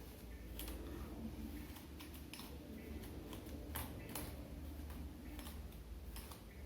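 Comb drawn through long wet hair: short, crisp rasping strokes at an irregular pace, about eight in a few seconds, over a steady low hum.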